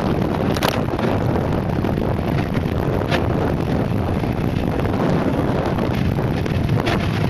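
Steady wind noise on the microphone over the rumble of a mountainboard's pneumatic tyres rolling fast on asphalt downhill, with a few brief clicks.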